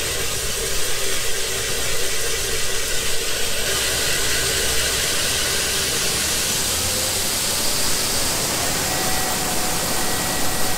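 Combine harvester running with its unloading auger engaged: a steady rushing hiss of shelled corn pouring out over a machine hum, with a faint thin whine coming in near the end.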